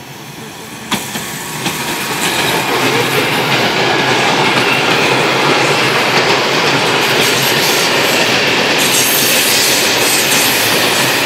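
ÖBB class 1216 electric locomotive and a long train of loaded open freight wagons passing close by: the rumble and rattle of wheels on rail swells over the first two or three seconds and then holds steady and loud. There is a sharp click about a second in.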